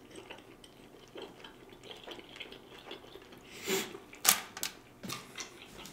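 Close-miked chewing of a seafood birria taco: soft, wet mouth sounds and small clicks, with a few louder short wet smacks between about three and a half and five seconds in.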